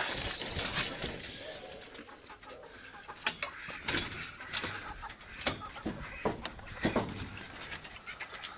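Birds calling, with a series of sharp knocks and rustles.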